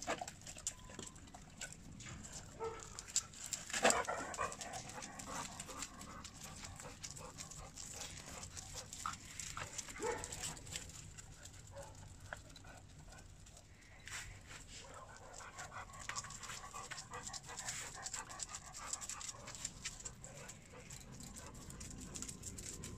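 Wirehaired vizsla puppies and adult dogs playing together: dogs panting, with scattered short clicks and scuffles of paws on paving stones and a few brief faint yips.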